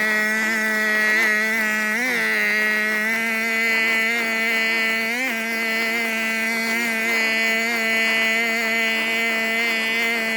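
Alpina TB34 petrol brush cutter's small two-stroke engine running at a steady high speed, with brief throttle blips about two seconds in and again around five seconds in.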